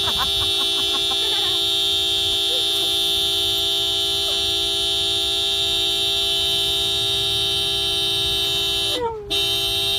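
A single steady, held tone with many overtones, unchanging in pitch, sounding for about nine seconds, breaking off briefly near the end and then starting again.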